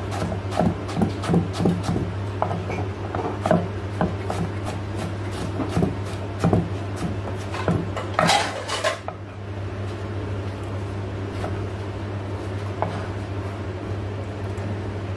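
Knife chopping vegetables on a wooden cutting board: a run of quick knocks, two or three a second, for the first half, a brief scrape about eight seconds in, then sparser knocks. A steady low hum runs underneath.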